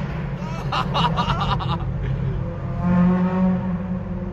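Car engine running at steady, moderately high revs, heard from inside a car's cabin, with the pitch shifting slightly about three seconds in. A brief cluster of sharp crackles sounds about half a second to two seconds in.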